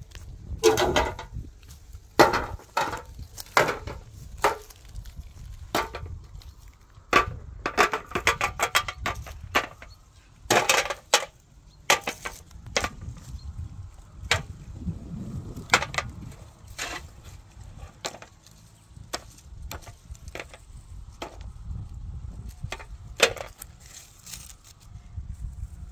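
Wood being struck: sharp wooden knocks and chops, about one or two a second with short pauses and a few quick clusters, over a steady low rumble.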